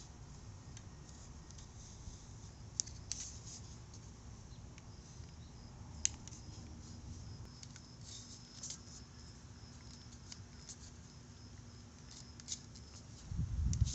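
Faint scattered clicks and scraping from handling a rubber wiper blade insert while its thin metal stiffener wire is slid into the groove, with a louder handling rustle near the end.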